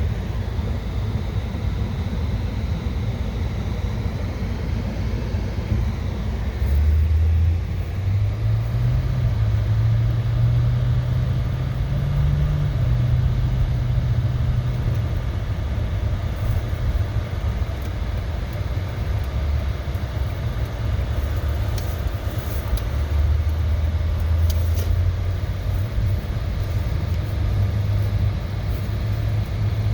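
Car driving, with a steady low engine and road rumble. The engine note rises about a quarter of the way in, eases off, and builds again near the end.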